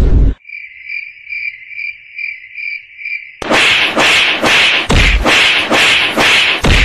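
Cricket chirping, a steady pulsing chirp for about three seconds. Then a fast run of loud whacks, about three a second, as a woman slaps and hits a man.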